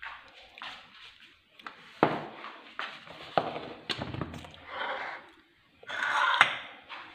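Irregular knocks, clicks and short scrapes of dishes and a baking tray being handled on a kitchen countertop, with a longer scraping stretch near the end.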